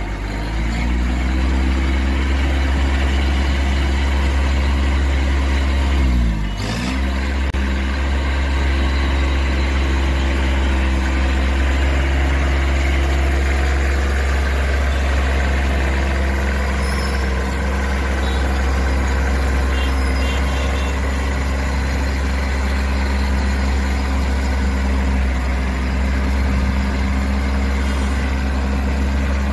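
Kubota B2441 compact tractor's three-cylinder diesel engine running steadily at low speed as it drives, its pitch dipping briefly and coming back up about six seconds in.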